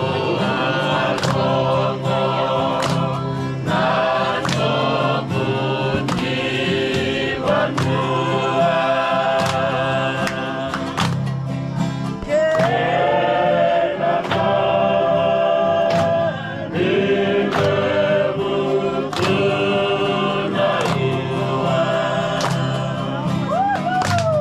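A choir of voices singing a gospel-style song in harmony over a steady beat and low bass notes.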